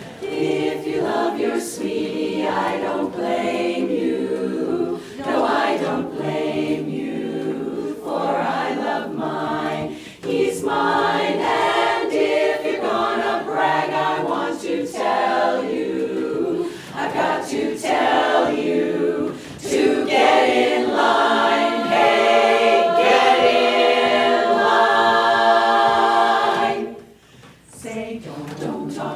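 An a cappella chorus singing in close harmony, ending a phrase on a long held chord, then breaking off briefly before the singing resumes near the end.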